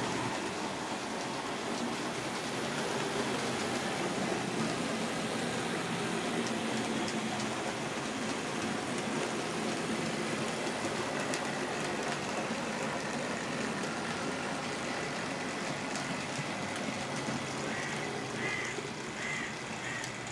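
OO gauge model trains running on a layout: a steady whirr and rattle of small electric motors and wheels on the track, with a few clicks over rail joints and a few short squeaks near the end.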